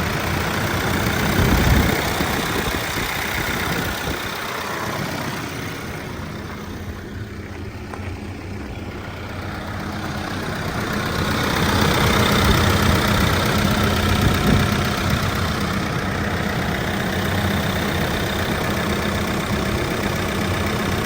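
Diesel engine of a 2018 Case 580N backhoe loader running at idle. It grows quieter for a few seconds midway, then louder again.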